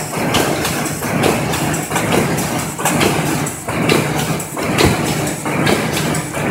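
Corrugated cardboard partition assembly machine running: a steady motor hum with a repeated clacking, roughly twice a second.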